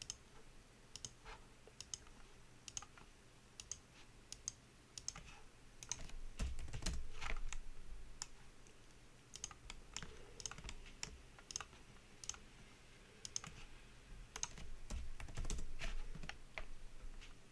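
Computer keyboard keys and mouse buttons clicking irregularly, with a low rumble in the middle and again near the end.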